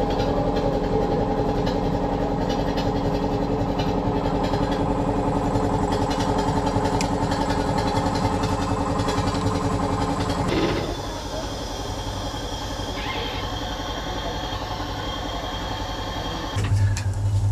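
Steady mechanical hum with a stack of fixed tones, fitting the brake air compressor housed in the loco's extra tender truck, running while the brake hoses are coupled. About ten and a half seconds in it cuts to a quieter steady hiss with a high tone.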